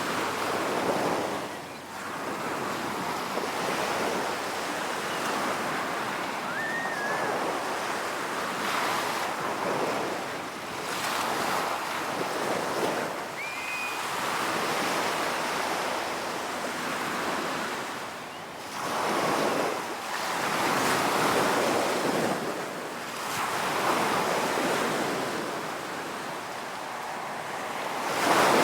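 Ocean surf breaking and washing up a beach in repeated swells a few seconds apart. Two brief high chirps cut through about a quarter and halfway in.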